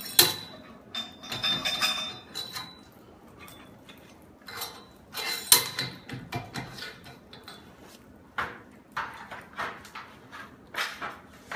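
Galvanized steel chain-link fence pipe and fittings clanking and clinking as the kennel framework is assembled. The sharp metal knocks come irregularly, the loudest just after the start and about five and a half seconds in, and some leave a brief high ring.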